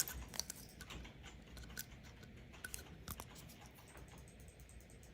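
Faint, irregular light clicks and taps from small packs of sewing machine needles being handled, with a low hum beneath.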